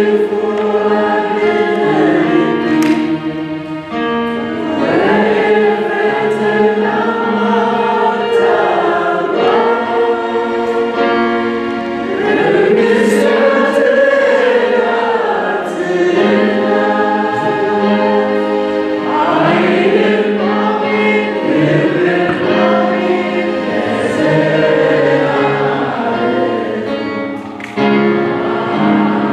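A choir singing a slow worship song together, in several voices, with long held notes.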